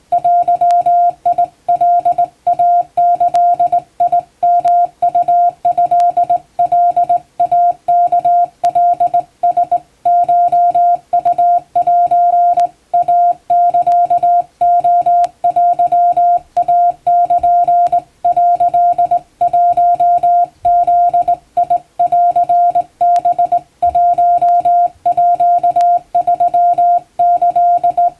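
Hand-sent Japanese (wabun) Morse code: a single steady tone keyed on and off in dots and dashes, with short gaps between the marks and longer gaps between characters.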